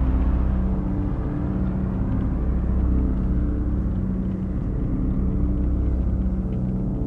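Dark ambient drone music from hardware synthesizers: a dense, steady low drone of several held tones over a heavy rumble.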